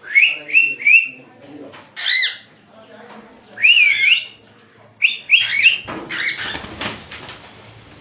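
Cockatiels calling during mating. The calls are short and chirping: three quick rising chirps at the start, single arched calls about two and four seconds in, and a cluster just after five seconds. In the last two seconds there is a rapid fluttering of wing flaps.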